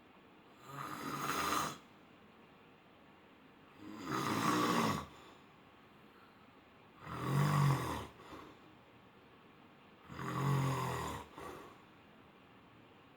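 A person snoring: four snores about three seconds apart, each lasting about a second, with a brief extra puff after the last two.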